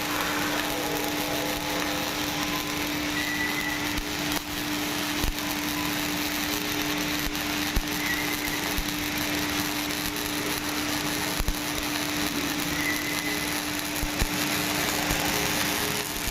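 MIG welding machine running: a steady hum under a constant hiss, with scattered sharp clicks.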